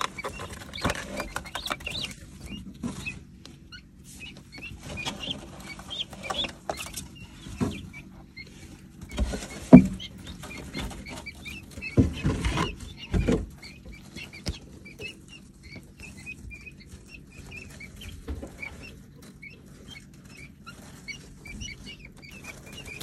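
Guinea keets peeping, a steady stream of short high chirps, with scattered knocks and thumps, the loudest about ten seconds in and several more around twelve to thirteen seconds.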